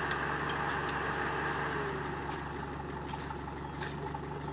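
Off-road vehicle's engine idling steadily, with a couple of short clicks in the first second.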